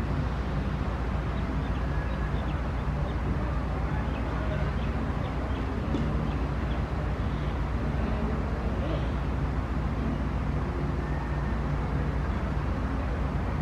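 Steady low outdoor background rumble with a faint hum, and a few faint, short, high chirps scattered through the first two-thirds.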